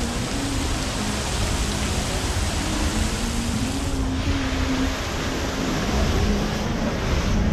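Steady rushing hiss of fountain jets spraying and splashing into a lagoon, with a low hum underneath. The hiss dulls briefly about four seconds in.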